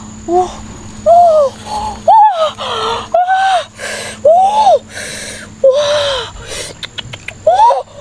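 A woman's short gasps and squealing exclamations, one or two a second, each rising and falling in pitch, with breathy noise between them, as she struggles to hold a live snake.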